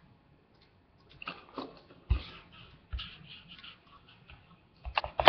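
Hard plastic blister packaging of a Beyblade toy being handled by hand: crackly rustling and tapping, with two knocks and a quick cluster of clicks near the end.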